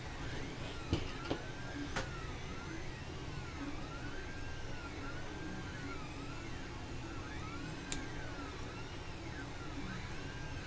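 Stepper motors of a working 3D printer whining in repeated rising-and-falling pitch sweeps, about one a second, over a steady low hum. A few sharp clicks of metal parts being handled, about one and two seconds in and again near eight seconds.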